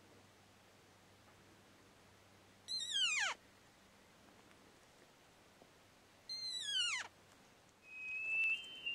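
Elk calling in the rut: two short, high calls that slide steeply down in pitch, a few seconds apart, then a high whistling note held steady near the end, the whistle of a bull elk's bugle.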